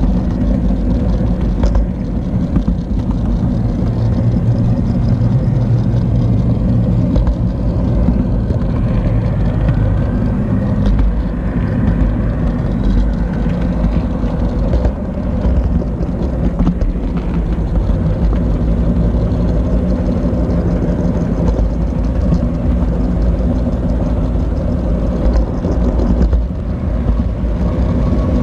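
HO-scale model train running along the track: a steady motor whir with the rumble of wheels on the rails.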